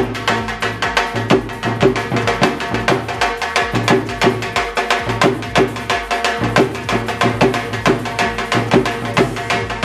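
Punjabi bhangra music driven by a fast, steady dhol drum beat.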